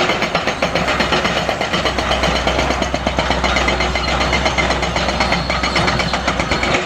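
Excavator-mounted hydraulic breaker hammering steadily at several blows a second, with the excavator's engine running under it.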